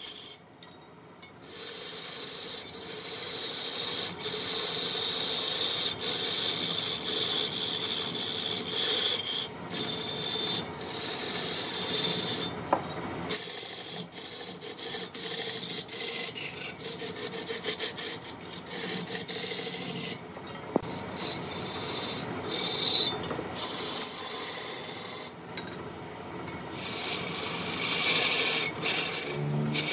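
Wood turning on a lathe: a chisel cutting and scraping the spinning wood, a steady hissing shave broken by a few abrupt short gaps.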